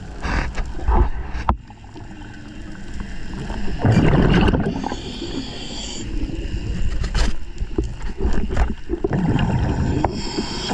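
A diver's breathing heard underwater: bursts of exhaled bubbles gurgling past the microphone every few seconds, with a few sharp clicks between them.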